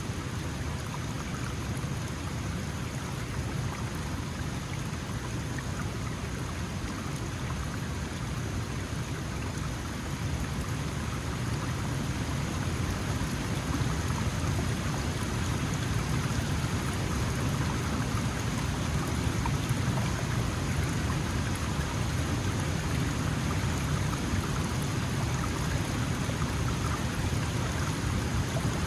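Small mountain stream flowing: a steady rush and splash of running water, a little louder from about halfway through.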